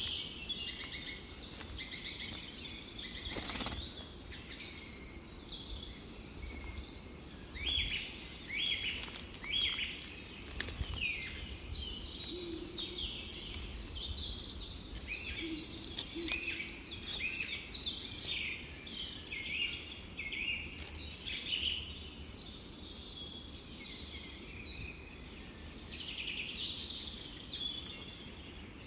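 Many small birds chirping and twittering continuously in overlapping short calls, with a few sharp clicks.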